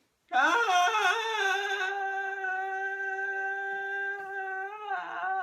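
A person singing one long held note. It wavers in pitch for the first second, then holds steady for about four seconds and bends just before the end.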